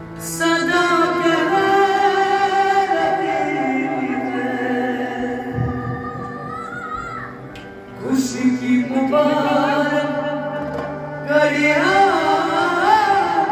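A male voice sings a Kashmiri song in long, wavering phrases over the sustained chords of a harmonium. The voice drops away briefly around eight seconds in, then takes up the next phrase.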